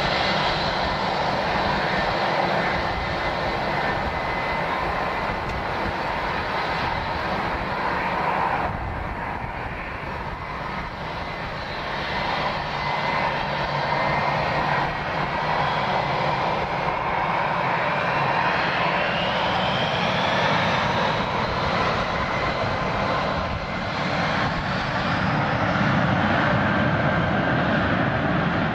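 Airliner engines running steadily at an airport. About two-thirds of the way through, a whine rises in pitch.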